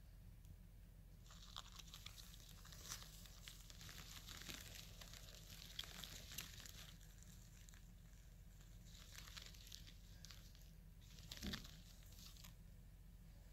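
Near silence with faint, dry crackling rustles coming in spells, and a soft knock near the end.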